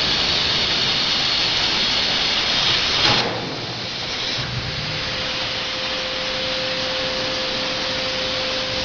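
CNC plasma cutter torch cutting metal with a loud, steady hiss that stops with a sharp pop about three seconds in. A quieter hiss follows, and a steady hum joins about halfway through.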